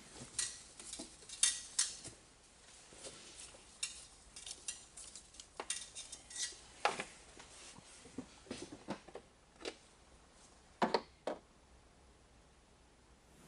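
Irregular sharp metallic clinks and clanks of metal tools and parts knocking together, a couple of dozen strokes with a few louder clanks among them.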